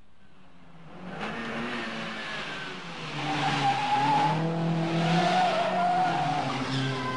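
Cars driven hard, engines revving, with tyres squealing as they skid through turns; the squeal is loudest in the middle and second half.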